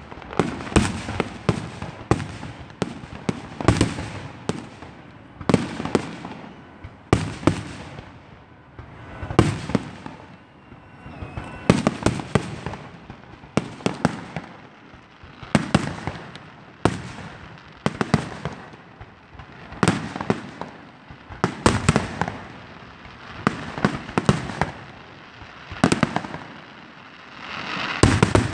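Aerial firework shells bursting one after another, a sharp bang every second or two, each trailing off in an echo, with finer crackling pops between the bangs.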